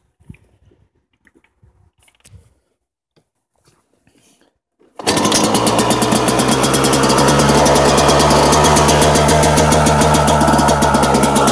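A 2002 Yamaha YZ125's 125 cc two-stroke single-cylinder engine being cold-started. After a few faint clicks, it catches suddenly about five seconds in and runs loud and steady with a fast, even beat.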